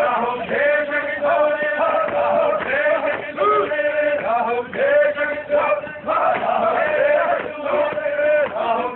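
Men's voices chanting an Iraqi hosa, the tribal chant, in loud repeated phrases with short breaks between them.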